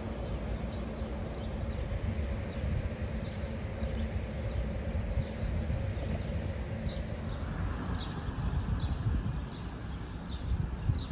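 Outdoor ambience with wind rumbling on the microphone and a steady low hum during the first part. From about seven seconds in, a bird calls in short descending chirps, about two a second.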